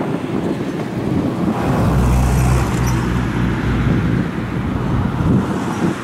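Low rumble of a motor vehicle passing by, strongest about two to three and a half seconds in, over wind buffeting the microphone.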